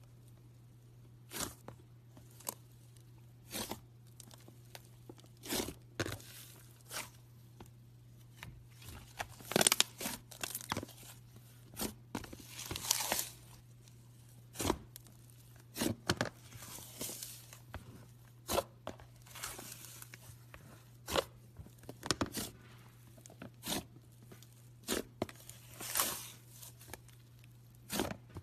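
Slime being squeezed and pulled by hand, giving irregular sticky pops and crackles about one or two a second, over a low steady hum.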